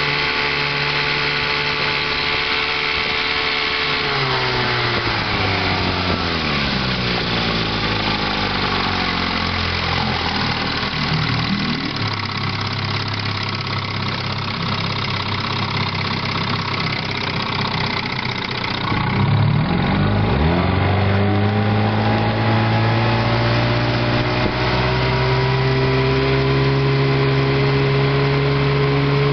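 1958 Evinrude Sportwin 10 hp twin-cylinder two-stroke outboard running under way, throttled back a few seconds in so its pitch falls to low revs. After a spell running slow it is opened up again, the pitch climbing quickly and then holding steady at cruising speed.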